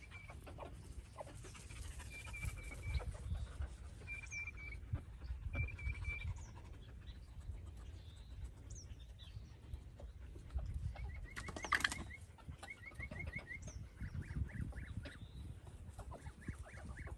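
A flock of chickens feeding on vegetable scraps: short high calls early on give way to quick trilled chirps in the second half, over faint pecking clicks and scuffs. There is one brief rustling burst about two-thirds of the way through.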